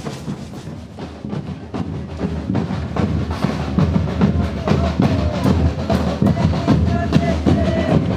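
Folk procession drums beating a steady, fast rhythm, with a held melody joining over them in the second half.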